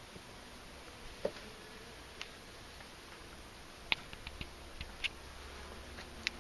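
Scattered sharp clicks and light knocks, about eight in all with a small cluster in the middle, from wooden beehive parts being handled as the hive is opened.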